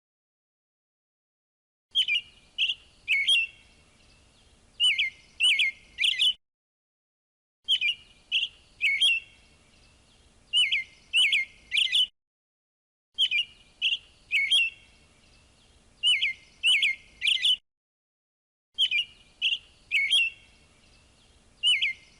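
Robin calling in short, sharp, high chirps with a brief trill. The same phrase of about four seconds repeats four times, with silent gaps between, as a looped recording.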